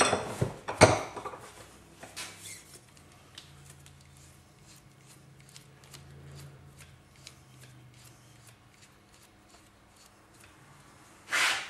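Hand-handling noises as a hydraulic lock extender is wound by hand onto a motorcycle fork's oily damper rod wrapped in a cloth rag: a sharp knock about a second in, then light clicks and rubbing, and a short louder rub near the end.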